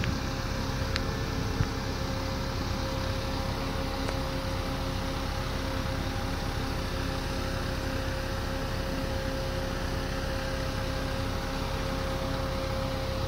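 Steady drone of heavy machinery running, a constant hum over a low rumble.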